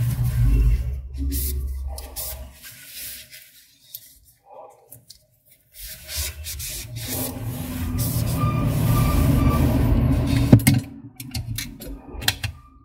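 Cloth wiping and rubbing on the plastic housing of a Canon 337 toner cartridge, with scattered small scrapes and clicks. A steady low motor-like hum runs through the first couple of seconds, drops away, and returns through the second half.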